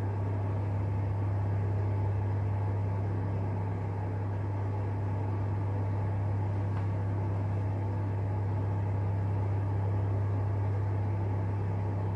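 Steady low hum with a faint even hiss over it, unchanging throughout.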